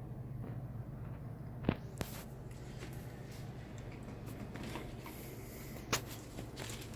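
Objects being handled: light rustles and knocks, with two sharper clicks about two seconds in and near the end, over a steady low hum.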